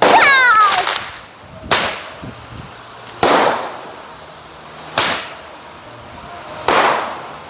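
Handheld 8-shot Roman candle firing: five sharp shots about every one and a half to two seconds, each fading quickly. A whistle falling in pitch follows the first shot.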